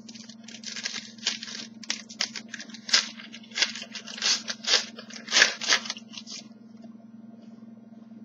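Trading-card pack wrapper being torn open and crinkled by hand: a run of sharp crackling tears that stops about six and a half seconds in.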